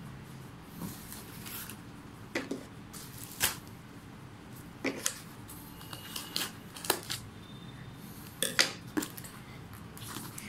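Scissors snipping into a cardboard parcel, a dozen or so short, sharp cuts and clicks at irregular intervals, mixed with the rustle of the box being handled.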